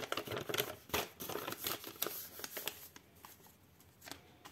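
A printed paper sheet being handled and set aside, with crinkly rustling and small handling clicks of paper and plastic; the rustling dies down after about three seconds.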